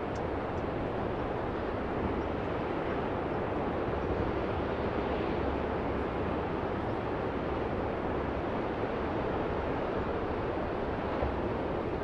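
Ocean surf breaking and washing in a steady, unbroken rush, with wind noise on the microphone.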